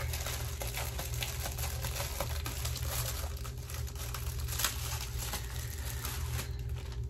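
Plastic packaging crinkling and rustling with many small crackles as a diamond-painting craft kit is opened by hand.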